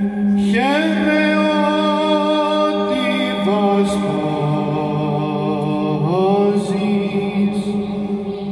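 Male choir singing Orthodox Byzantine chant: a steady low drone (the ison) is held underneath while the melody voices swoop up into new phrases about half a second, three and a half seconds and six seconds in.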